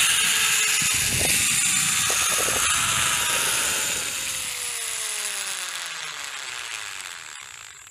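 Zipline trolley pulleys running along the steel cable: a whirring whine with a high hiss that falls steadily in pitch and fades as the rider slows.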